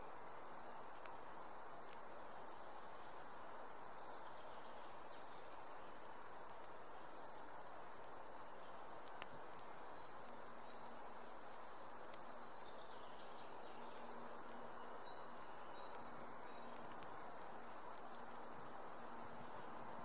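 Faint outdoor ambience: a steady soft hiss with scattered faint, high bird chirps. There is a single sharp click about nine seconds in, and a low steady hum joins about halfway through.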